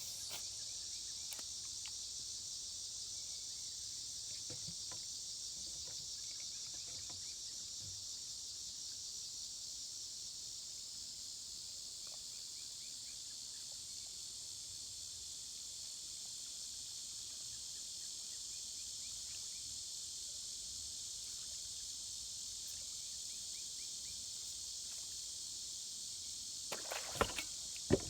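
Steady high-pitched chorus of insects such as crickets trilling, with a few sharp knocks near the end.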